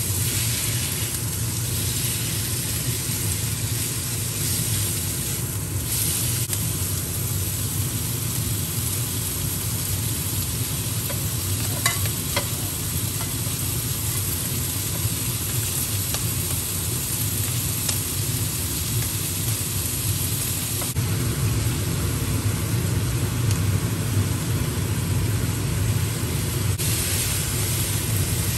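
Sliced meat and carrots sizzling as they are stir-fried, with a spatula stirring and scraping the pans and a steady low hum underneath.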